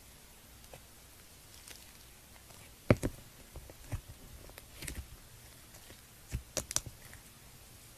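Crunchy slime crackling and popping as it is handled: a dozen or so short, sharp crackles spread irregularly, the loudest about three seconds in and a quick cluster near the seven-second mark.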